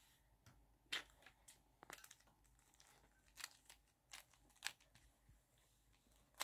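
Near silence, with a few faint, short clicks and ticks scattered irregularly through it.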